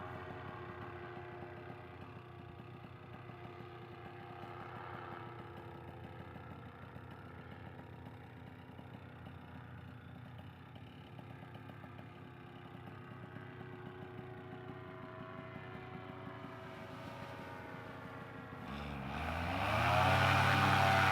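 Two-stroke paramotor engine running steadily at low throttle, then throttled up near the end: its pitch rises and the engine and propeller grow much louder.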